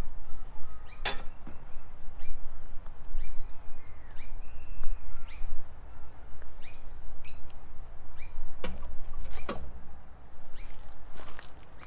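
Small birds chirping, many short rising chirps, with three sharp clicks, one about a second in and two close together near the end, over a steady low rumble.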